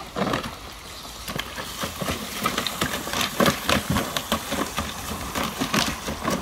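Water from a garden hose spray nozzle hissing into a shallow plastic paddling pool, with irregular splashes as a giant schnauzer puppy shifts its paws in the water.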